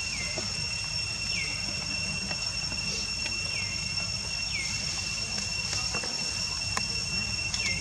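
Outdoor insect drone: a steady high-pitched buzz held at two pitches, over a low rumble. A short falling chirp recurs every second or two.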